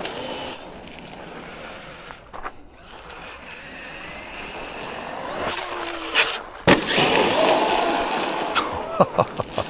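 Traxxas Maxx V2 RC monster truck driving on gravel: the electric motor whines and the tyres rumble and crunch over loose stones. About two-thirds of the way through it suddenly gets louder, and a few sharp clicks follow near the end.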